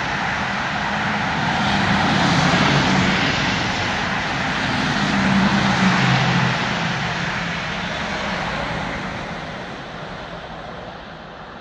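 Rolling-highway freight train, lorries riding on low-floor wagons, passing close by: a steady rumble and rail noise of wheels on track, fading over the last few seconds as the train's tail, a coach and a red electric locomotive, moves away.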